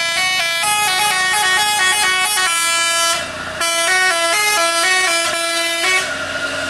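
Dump truck's telolet horn, a multi-note air horn, playing a quick tune of changing notes. It breaks off briefly about three seconds in and stops about six seconds in.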